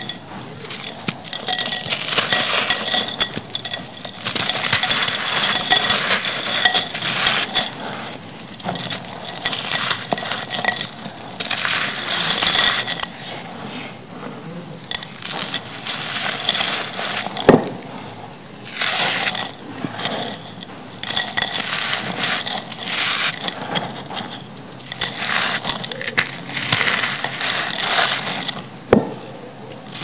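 Dry, dusty clay soil crumbled in the hand, the chunks crunching and the grit trickling into a terracotta pot, in bursts of a second or two with short quieter gaps and a couple of sharp clicks.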